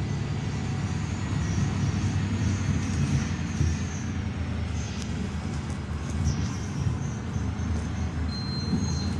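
Volvo B290R city bus driving, heard from inside the cabin: a steady low engine and road rumble with light rattles and knocks. A faint high tone comes in near the end.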